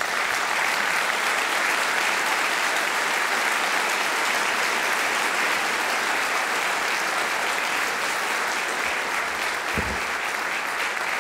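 A large seated audience applauding steadily, a sustained round of clapping that eases slightly near the end.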